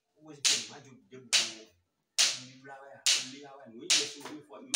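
Sharp claps, evenly spaced at a little under one a second, with a man's voice between them.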